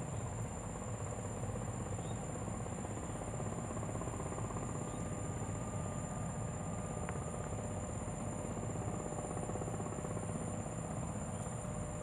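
Steady low mechanical rumble with a faint hum, like a distant engine running, under a constant high-pitched drone of insects.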